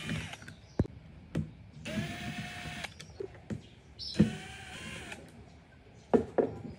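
DCA 20V cordless impact driver whirring in short runs of about a second each as it drives screws that fix a woofer into a speaker cabinet, its motor pitch rising and settling in each run. Sharp clicks and knocks from handling the tool and screws fall between the runs.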